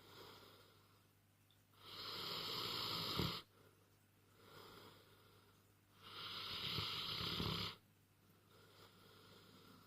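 Sleeping dog snoring: two loud snores about four seconds apart, each lasting about a second and a half, with fainter breaths between them.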